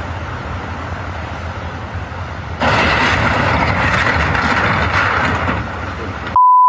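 Steady rushing outdoor noise with a low rumble, louder for about three seconds from a third of the way in. A steady one-pitch beep, a censor bleep, starts just before the end.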